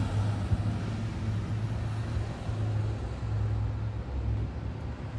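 Vehicle engine running steadily, a low hum with faint traffic noise around it.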